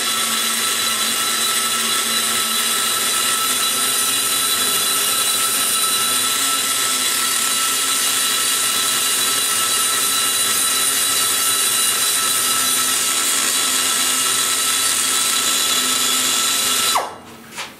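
Die grinder running at a steady high speed, its burr cutting inside the exhaust port of an aluminum cylinder head while it is being ported. Steady whine with a hiss, cutting off about a second before the end.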